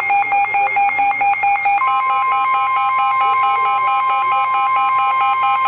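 Emergency Alert System alert tones: a rapidly pulsing electronic beep, about five a second. About two seconds in, a steady higher alarm tone joins it and sounds with it to the end.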